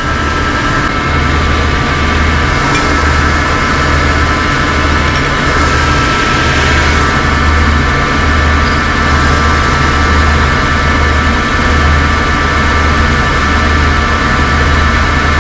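A large engine running steadily. Its low throb swells and fades roughly every second and a half, with a steady whine above it.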